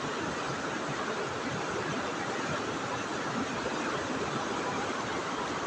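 Steady, even rushing noise that holds the same level throughout, with no gusts, pauses or separate events.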